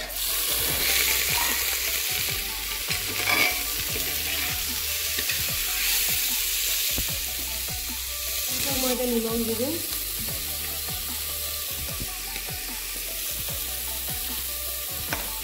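Raw chicken pieces sizzling as they drop into hot oil with fried onions and whole spices in a pressure cooker pan. The sizzle starts suddenly and loud, then settles into steady frying with light knocks of a spoon stirring.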